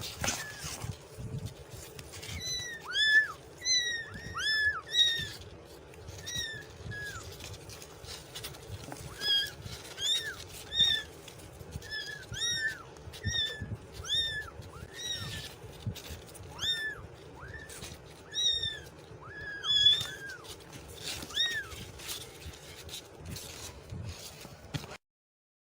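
Kitten mewing over and over: many short, high-pitched, arching mews, some in quick pairs, over a low background rumble, stopping abruptly near the end.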